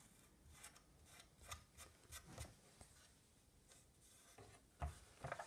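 Faint rubbing and scattered small clicks of hands handling parts at the front of a Kirby vacuum's fan case, with one louder knock near the end.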